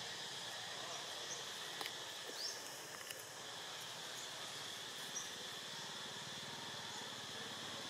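Steady drone of insects in forest undergrowth, with a few short high chirps now and then.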